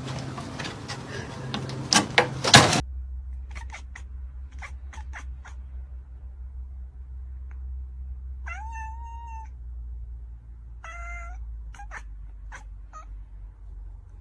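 Domestic cat meowing twice, each meow drawn out for about a second, among scattered light clicks and a low hum. Earlier, two loud sharp knocks about two seconds in.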